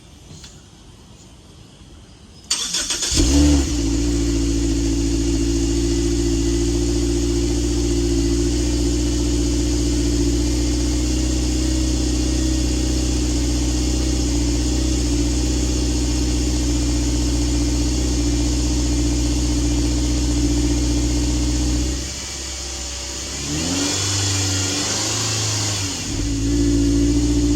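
Subaru XV's FB20 2.0-litre flat-four engine, heard through an HKS Legamax Premium aftermarket exhaust. It cranks and starts about two and a half seconds in, flares briefly, then runs at a steady idle. Near the end the idle drops, the engine is revved up a couple of times, and it settles into a louder steady run.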